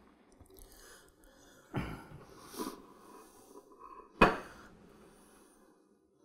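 A fork working into a slice of pie on a plate, with a sharp clink of metal on the plate about four seconds in. There is a short breath through the nose near the two-second mark.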